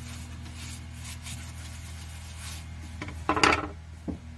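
A rag rubbing boiled linseed oil onto a black walnut bowl, as a soft repeated scratchy rubbing over a steady low hum. There is a brief louder scrape about three seconds in.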